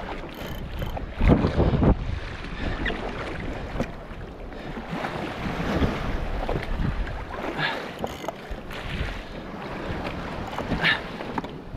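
Wind buffeting the microphone and choppy sea waves slapping and breaking against a jetski's hull, with a strong gust about a second in and a wave washing over the bow midway.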